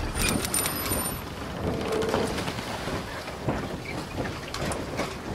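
A steady, even noise hiss with scattered faint crackles, a sound effect under an animated logo intro.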